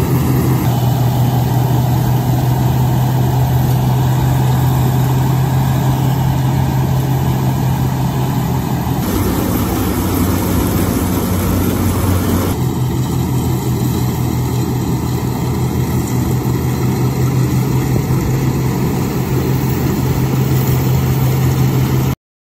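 International Harvester 403 combine running steadily while harvesting milo, with a strong low engine hum. The sound changes for a few seconds about nine seconds in, then settles back, and cuts off suddenly near the end.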